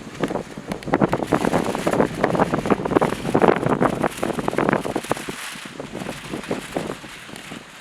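Gusty wind buffeting the microphone in irregular rushes, easing off over the last few seconds.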